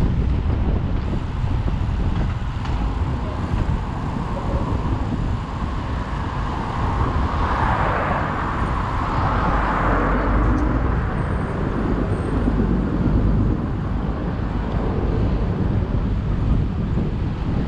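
Wind noise on the microphone of a bicycle-ridden camera, over road traffic; the traffic noise swells and fades around the middle.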